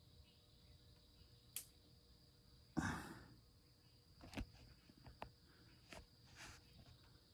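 Near silence: room tone, with a few faint sharp clicks and a brief rustle about three seconds in.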